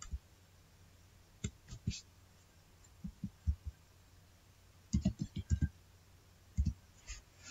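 Computer keyboard typing: scattered short key clicks, with a quick run of several about five seconds in.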